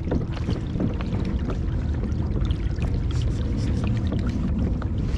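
Steady low rumble of wind and water around a kayak on open water, with many scattered light clicks and taps.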